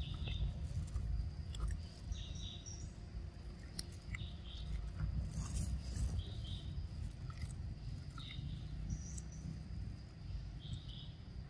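Outdoor wildlife ambience: a steady high insect drone with short, high chirps every second or two, over a constant low rumble.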